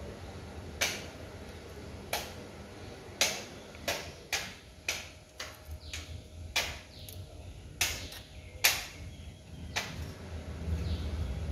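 Sharp metal clicks and clinks, about a dozen at uneven spacing roughly a second apart, as hand tools work on a motorcycle engine that is being stripped down.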